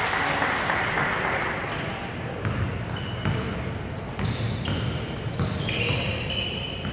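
Indoor basketball game: the ball bouncing on the court and short high sneaker squeaks, over crowd voices echoing in a large gym.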